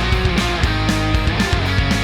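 Background rock music with electric guitar and a steady driving beat.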